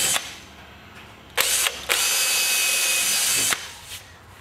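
Cordless drill running at a steady speed as a 4 mm bit bores through an MDF door-jamb head, two holes in turn. The first run stops just after the start, and the second starts about a second and a half in and runs for about two seconds before it stops.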